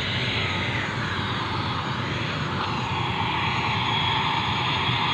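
Turboprop airliner's engines running steadily: a broad rushing noise with a thin steady high whine, growing a little louder about three seconds in.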